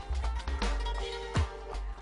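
Show bumper music returning from a commercial break: sustained notes over a pulsing bass line, with a deep drum hit about a second and a half in.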